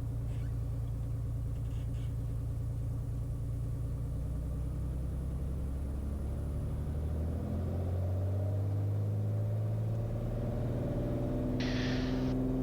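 Beechcraft Bonanza's piston engine running steadily, then rising in pitch about seven seconds in and again near the end as power comes up for takeoff. A brief hiss near the end.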